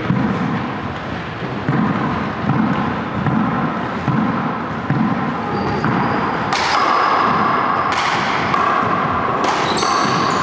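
A racquetball is bounced on a hardwood court floor in a steady series of dull thumps before the serve. About six and a half seconds in, the serve is struck, followed by sharp cracks of racquet on ball and ball off the walls as the rally starts, with sneakers squeaking on the floor.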